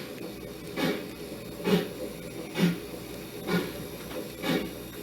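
KATO sound box playing D51 steam locomotive exhaust chuffs through a small speaker: slow, even chuffs about once a second over a steady hiss.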